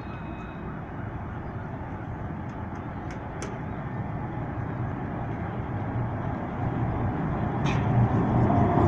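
Alstom Citadis light-rail tram approaching along street tracks, its running rumble and low motor hum growing steadily louder as it nears.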